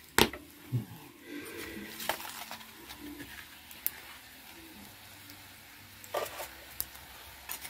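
A metal spoon clinking and scraping in a mortar of seasonings, with a few sharp knocks, the loudest just after the start.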